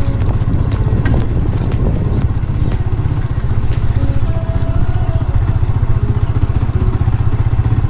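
Motorcycle engine running steadily at low speed on a bumpy dirt track, with scattered clicks and rattles over the engine note.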